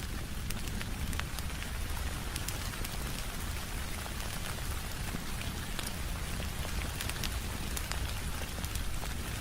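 Steady rain falling, with a low rumble beneath it, and the scattered crackle and pops of a wood fire in a fireplace.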